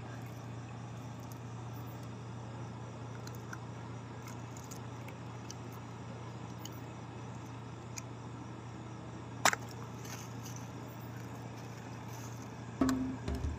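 Steady low hum under faint chirping of night insects, with one sharp click about nine and a half seconds in. Music comes in near the end.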